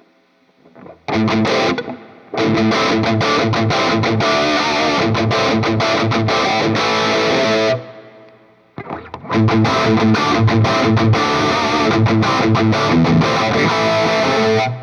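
Distorted electric guitar through a digital amp modeler's Marshall Plexi emulation on its overdriven channel, boosted by a Tube Screamer emulation, playing a rock riff twice with a short break about eight seconds in.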